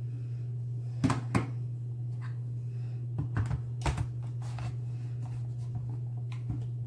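A small plastic plug-in heater being handled and fitted at a wall outlet: a handful of sharp clicks and knocks, two about a second in and several more around three to four and a half seconds in, over a steady low hum.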